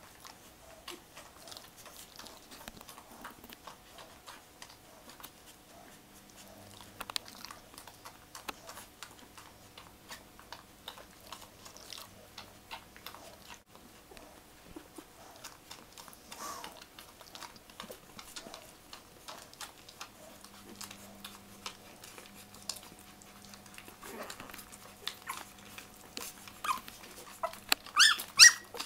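Nine-day-old English Springer Spaniel puppies squeaking and whimpering over many soft clicks, with a cluster of louder high squeals near the end. A faint steady hum runs underneath.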